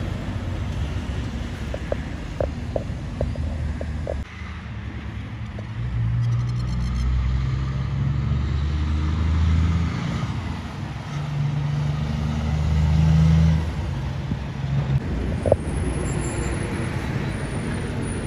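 Heavy diesel trucks driving past one after another, including a Kenworth prime mover hauling a tanker. Their deep engine drone and tyre noise swell and fade as each goes by, loudest around ten and thirteen seconds in, with the engine note sitting higher in the later pass.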